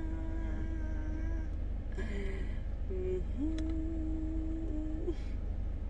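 A woman's voice holding long sung notes: one long held note, two short ones, then another long note that slides up into pitch.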